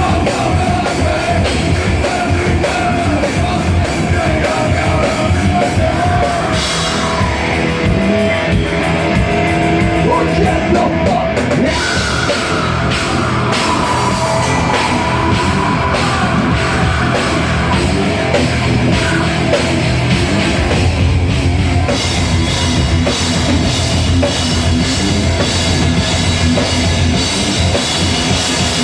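Heavy metal band playing loud, with distorted electric guitars and a drum kit in a dense, unbroken wall of sound.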